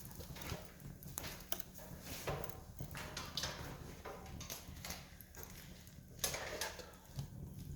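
Wood campfire crackling, with irregular snaps and pops over a low steady rumble and a couple of louder pops about two and six seconds in.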